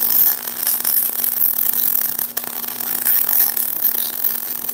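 Electric arc welding on a steel truck rear axle housing: the welding arc crackles and sizzles steadily and evenly throughout.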